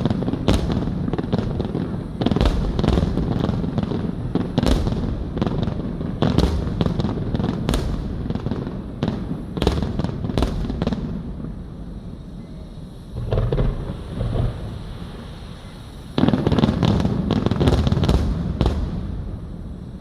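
Fireworks display: aerial shells bursting in quick succession. The bursts thin out for a few seconds past the middle, then a dense volley comes near the end.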